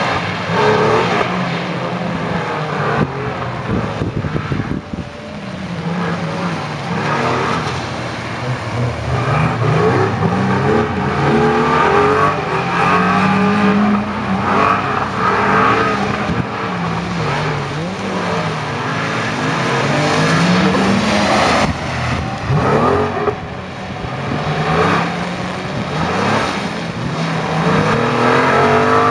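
Air-cooled Porsche 911 (993) flat-six revving up and down over and over as the car is drifted, with the hiss of its tyres throwing spray off standing water on the asphalt.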